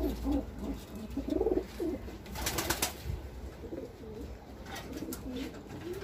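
Domestic pigeons cooing, a run of low wavering coos. A brief rustling or scraping noise about two and a half seconds in, and a few light clicks near the end.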